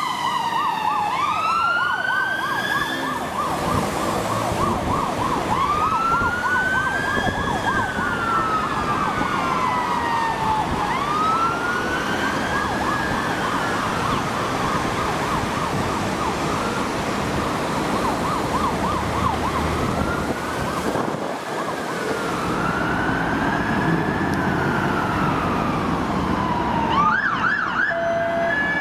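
Fire engine sirens over traffic noise: a fast yelp overlapping a slow wail that rises and falls every four seconds or so, then the wail alone, switching back to a quick yelp near the end.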